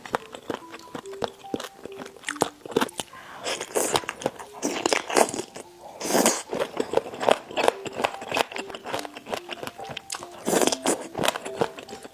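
Close-miked eating: repeated biting and crunchy chewing, irregular and wet-sounding, with faint background music.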